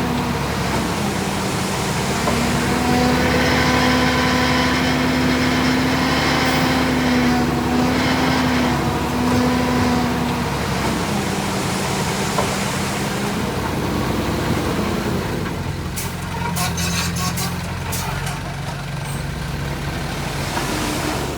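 Heavy diesel engine of a construction machine running. Its pitch steps up and down with changing load, and a run of sharp knocks comes about three quarters of the way through.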